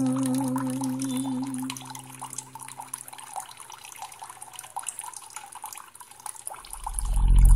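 Water trickling and dripping from a miniature tabletop waterfall into a small pool, as a held sung note fades out in the first two seconds. A loud low rumble swells up near the end.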